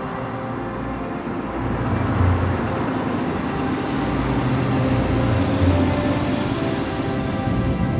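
Background music: a dark ambient track of held tones with deep low swells every few seconds.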